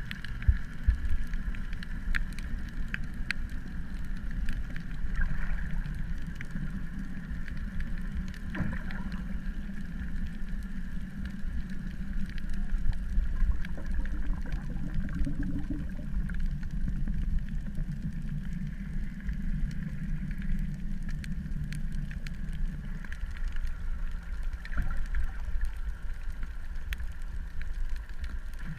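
A boat's engine running steadily: a low hum with a higher steady drone and scattered small clicks. The low hum thins out about two-thirds of the way through.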